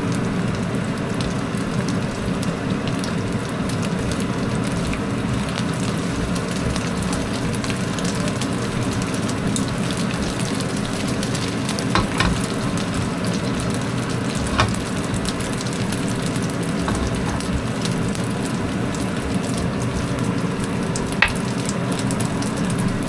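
Diced Chinese sausage sizzling steadily in hot oil in a wok, over the steady hum of a range hood fan, with a few sharp clicks of a spatula against the wok.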